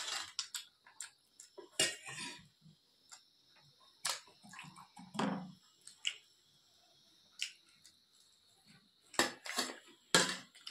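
Eating sounds: spoons clicking and scraping on metal plates of rice, with chewing and mouth smacks in short, irregular bursts.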